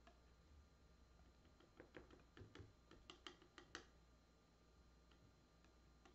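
Faint light clicks and taps of a metal palette knife working oil paint and cold wax medium on paper: about ten of them in a quick run over two seconds, starting a little under two seconds in; otherwise near silence.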